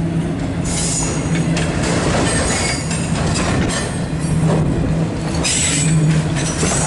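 Loaded freight autorack cars rolling past close by: a steady rumble and clatter of steel wheels on the rails, with two brief high-pitched wheel-squeal bursts, about a second in and again near the end.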